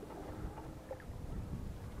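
A hooked fish being reeled in on a spinning rod, splashing and thrashing at the water's surface close to shore, with irregular low sloshes and a few light clicks.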